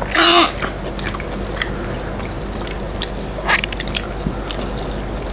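Close-miked eating of crispy fried chicken katsu: bites and chewing with a few short, crisp crunches spread through.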